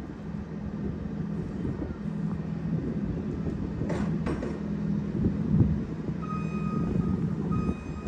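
Truck engine running steadily while pulling a loaded flatbed trailer, with a sharp knock about four seconds in. From about six seconds on, an alarm beeps on and off.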